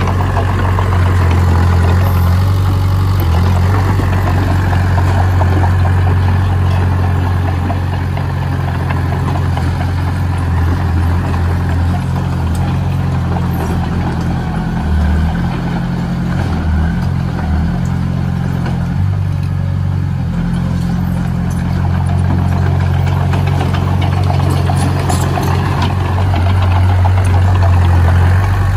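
Heavy diesel engine of earthmoving machinery running steadily, its low note wavering for a few seconds about halfway through.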